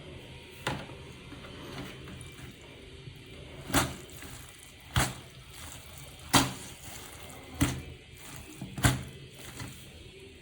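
A series of sharp knocks or thuds, one faint one and then five louder ones evenly about every second and a quarter, over a steady low rushing noise.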